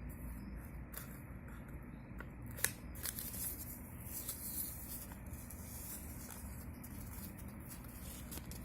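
Faint handling noises, with soft scattered clicks and one sharper click about two and a half seconds in, over a low steady hum.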